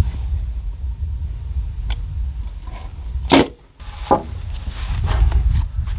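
Pneumatic framing nailer firing nails into cedar framing boards: one sharp shot right at the start and another a little over three seconds in. Lighter knocks of wood follow, over a steady low rumble of wind on the microphone.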